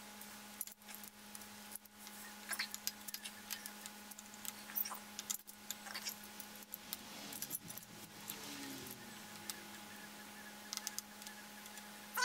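Steel timing chain and cam sprocket of a GM LS V8 clinking and rattling in scattered small clicks as they are fitted by hand onto the camshaft, over a steady hum.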